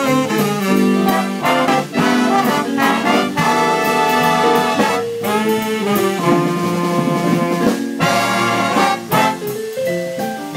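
A swing big band playing live, with the horn section of trumpets, trombones and saxophones carrying the tune over the drums.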